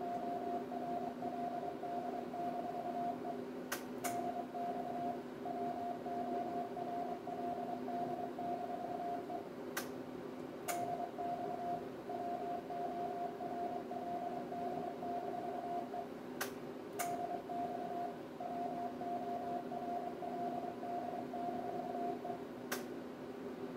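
CW sidetone from a transceiver: a steady beep near 700 Hz, keyed in stretches of about six seconds, while a 500 W LDMOS linear amplifier puts out about 500 W on 20 m. At each pause there are one or two sharp clicks, and a steady fan hum from the amplifier's air cooling runs underneath.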